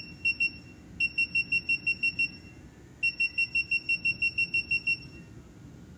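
Touchscreen control panel of a pressotherapy/EMS beauty machine beeping as its level-up arrow key is pressed and held, each beep one step of the EMS intensity setting. The high, single-pitched beeps come about seven a second in runs, with short pauses between them; the last run lasts about two seconds.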